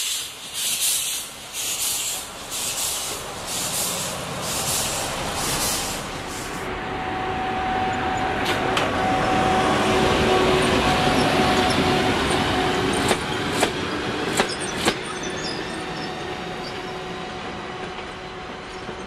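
ÖBB class 93 steam tank locomotive pulling away with a passenger train, its exhaust beating evenly a little under twice a second. After a cut comes a steady rumble of train noise with a faint whine, swelling and then fading, with a few sharp clicks in the middle.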